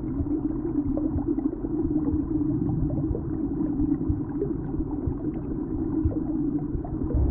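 Steady low, muffled rumble with faint gurgling ticks: a sound-effect ambience for blood flowing through the vessels.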